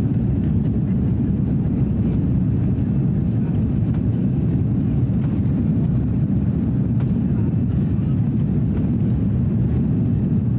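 Steady cabin noise inside an Airbus A330-300 in its climb after takeoff: a low, even rumble of the Rolls-Royce Trent 700 engines and the airflow over the fuselage.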